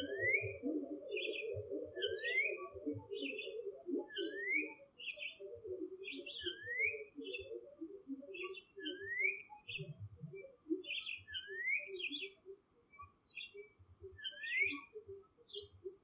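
Birds calling: a short rising whistled note repeated about every second and a half among clusters of high chirps, over a dense run of low hooting notes that thins out after about five seconds.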